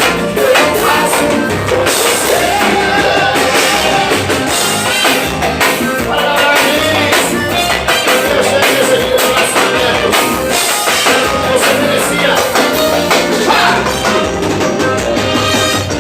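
Live forró band music played loud through a PA, with a drum kit keeping the beat and a sung melody over it.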